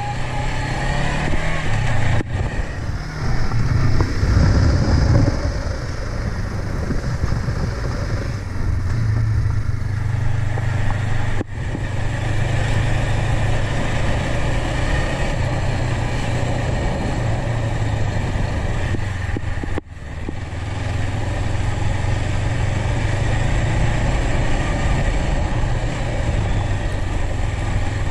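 Honda CB500X's parallel-twin engine running under way on a dirt track, with a steady rush of wind and road noise over it. The sound breaks off for an instant three times.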